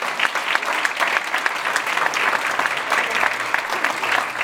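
A seated audience applauding: many hands clapping in a steady round of applause that thins out near the end.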